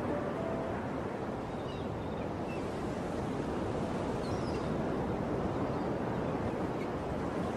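Surf breaking and washing up a sandy beach, a steady rush of waves with wind, and a few faint high chirps.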